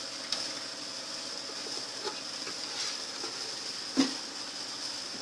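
Steady hiss with a few faint knocks, and one sharper knock about four seconds in.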